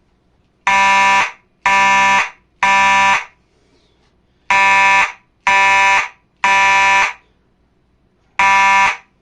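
Simplex 4903 fire alarm horn sounding the code 3 (temporal-three) evacuation pattern: three loud half-second buzzing blasts, a pause, three more, and the first blast of the next round near the end.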